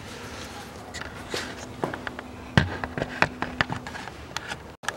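Scattered light clicks and knocks over a faint steady hum in a small room, with one louder knock about halfway through; the sound cuts out for a moment near the end.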